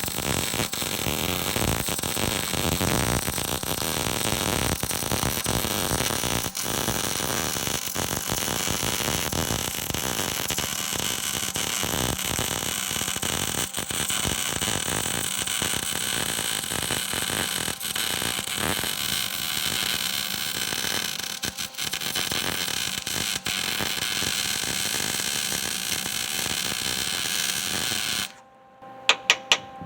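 Arc welding a steel gusset into a truck frame: a continuous loud crackle of the welding arc that cuts off abruptly near the end, followed by a few sharp clicks.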